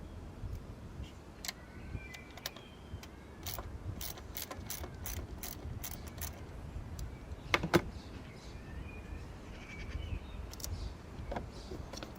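Sharp metallic clicks and light knocks of tools and parts being handled during engine work. There is a quick run of clicks in the middle and two louder clicks close together about eight seconds in.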